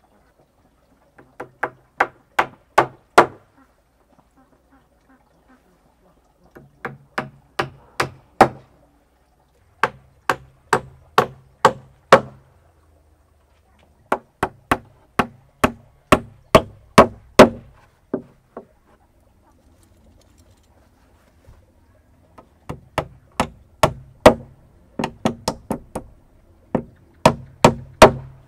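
Hammer driving nails through a wooden cleat into a solid wood bed rail: runs of quick, sharp blows, about three a second, in five bursts with short pauses between nails.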